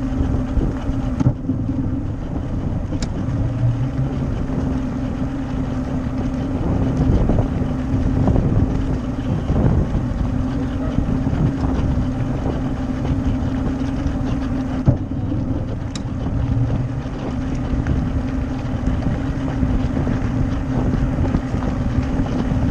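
Mercury 150 Pro XS four-stroke outboard running steadily on a bass boat, with a constant engine tone, while wind rumbles on the microphone.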